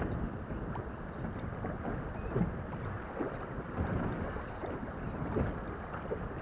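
Water lapping and slapping against the hull of a small fishing boat, with a steady rush of wind noise on the microphone and scattered light knocks.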